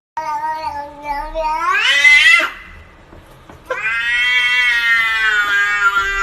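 A cat meowing in two long, drawn-out calls: the first rises in pitch near its end, and the second, starting about halfway through, is held at a steady pitch.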